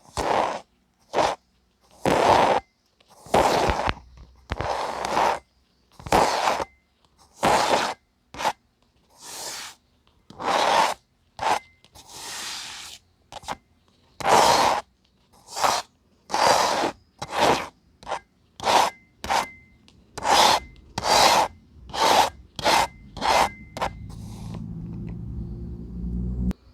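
Kinetic sand rubbed and scraped in repeated short strokes, about one a second, coming faster in the second half. A steady low rumble takes over for the last couple of seconds.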